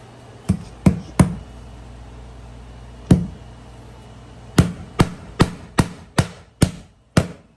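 Hammer striking in the tile work, fixing the last piece in the middle. Three sharp blows near the start, one more about three seconds in, then a steady run of seven blows at about two and a half a second.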